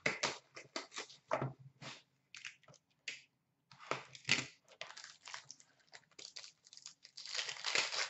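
Packaging of a hockey card box being handled and opened: irregular crinkles, clicks and rustles of cardboard and plastic, with a denser stretch of crinkling and tearing near the end.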